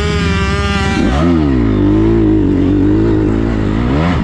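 Motocross bike engine heard from the rider's onboard camera while racing on a dirt track. The note is high at first, drops sharply about a second in as the throttle comes off, climbs back and holds, then dips again near the end.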